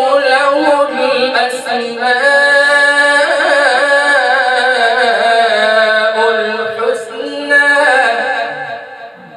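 A man reciting the Quran in the melodic tajweed style, holding long ornamented notes in one unbroken phrase. The phrase fades out near the end.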